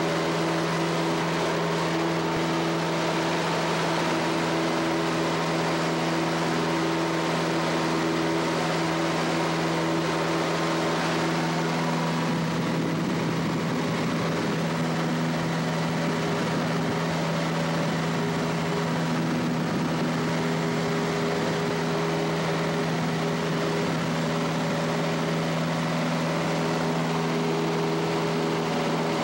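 1966 Cessna 150's four-cylinder Continental O-200 engine and propeller droning steadily in flight, heard from inside the cabin. A rougher rushing noise joins the drone from about twelve seconds in.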